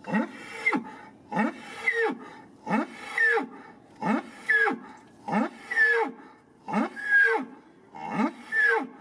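A large farm animal calling loudly in a steady rhythm: seven two-part calls, about one every 1.3 seconds, each a low rising note followed by a higher falling one.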